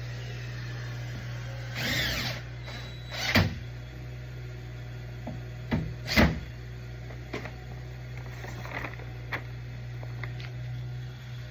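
Sharp clicks and knocks of door lock set parts being handled and fitted, the loudest two about three and six seconds in, with a short rasp about two seconds in, over a steady low hum.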